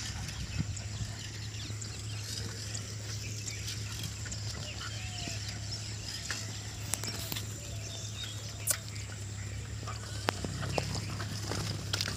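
Footsteps and light scuffs on a dirt path, a scatter of short ticks, over a steady low hum.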